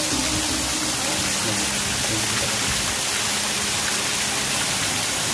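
Small waterfall splashing down a rock face: a steady, even hiss of falling water.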